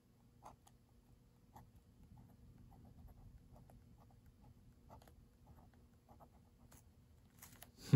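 Fine steel nib of a Muji aluminum fountain pen scratching faintly over paper as letters are written, dotted with small irregular ticks. A single, much louder thump lands at the very end.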